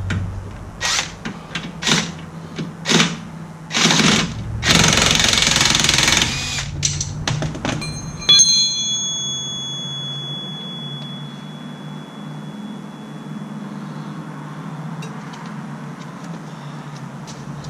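Impact wrench hammering on a 19 mm bolt in four short bursts about a second apart, then a longer burst of about two seconds as the bolt breaks loose. Then a sharp metallic clink whose high ring fades over several seconds.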